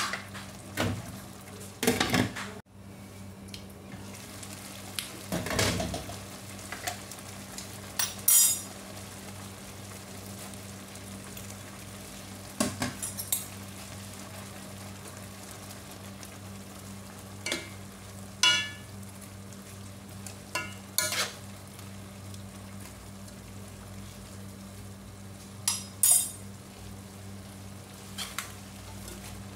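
A pot of soup simmers with a steady bubbling hiss while a metal ladle stirs it, clinking and scraping against the granite-coated wok about a dozen times at irregular intervals. A faint steady low hum runs underneath.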